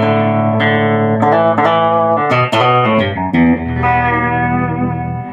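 Electric guitar played through a 1968 Fender Pro Reverb tube amp with its tremolo on: a phrase of picked notes and chords, a new one struck every half second or so. The tremolo works but pulses only weakly, which the player takes to be probably due to a non-original replacement capacitor in the trem circuit.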